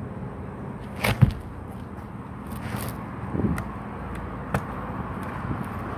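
Air rifle being handled and cocked: a sharp, loud double clack about a second in, a brief swishing hiss near the middle, then a few light clicks.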